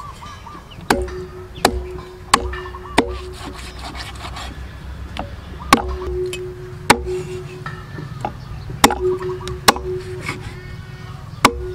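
Heavy cleaver chopping through oxtail on a thick round wooden chopping block: about nine hard, sharp blows in uneven groups, four in quick succession, then pairs, then one near the end. Many of the blows leave a short low ring.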